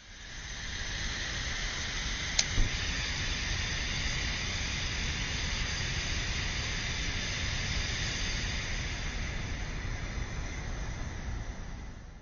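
Steady rushing hiss that fades in at the start and cuts off near the end, with two sharp clicks about two and a half seconds in.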